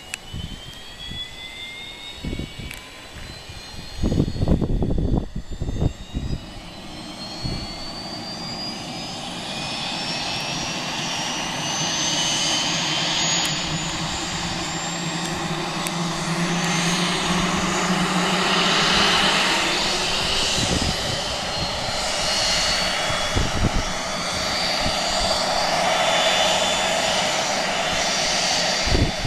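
Twin rear-mounted turbofan engines of a business jet running on the ground. Their high turbine whine climbs steadily in pitch over the first half while the engine noise grows louder, with a few gusts of wind on the microphone about four to six seconds in.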